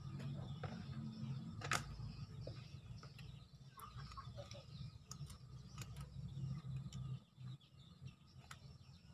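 Kitchen knife cutting open and scraping a raw fish on a plastic cutting board: scattered small clicks and scrapes, with one sharper click about two seconds in. A low steady hum runs underneath and drops away about seven seconds in.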